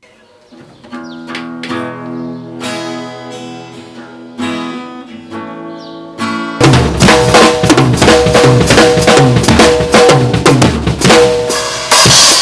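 Music: quiet plucked-string notes, then about halfway through a loud full band with drums comes in suddenly.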